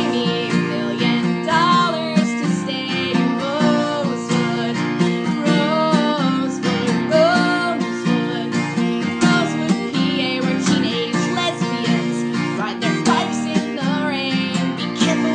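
Music: strummed acoustic guitar with a wavering melody line over it.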